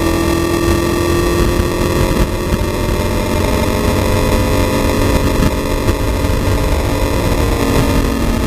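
Mercury Cougar race car at speed on track, heard from inside its stripped cabin: the engine running steadily under a loud wash of wind and road noise.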